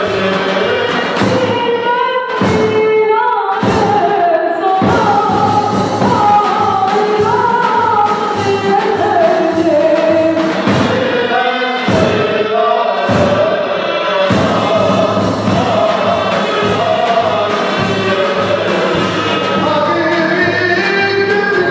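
Ottoman mehter band music: a melody sung by voices together with zurnas, over a steady drum beat.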